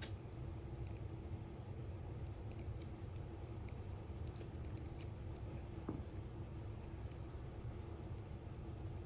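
Faint, scattered small clicks and taps of metal tweezers working a tiny bracket inside an iPhone 5s, one a little stronger about six seconds in, over a steady low hum.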